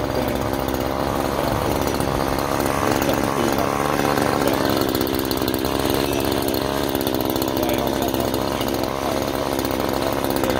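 Echo CS-3510 electric chainsaw running steadily while cutting through the branches of a bush.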